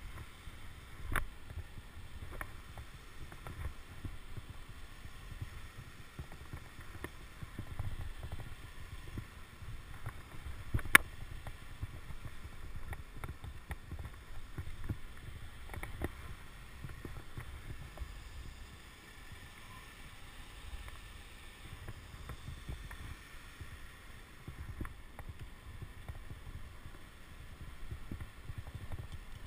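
Wind rumbling unevenly on a body-worn action camera's microphone, with scattered clicks and knocks of climbing movement on the rock. A sharp click about eleven seconds in is the loudest.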